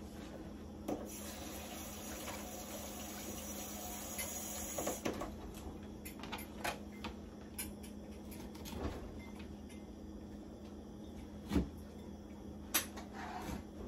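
Kitchen cooking clatter: scattered light knocks and clicks of pots, lids and utensils over a steady low hum. A hiss fills the first five seconds, and the sharpest knocks come near the end.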